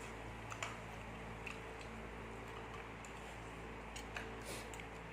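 Light, scattered clicks and taps of people eating, from chewing and utensils, over a steady low electrical hum.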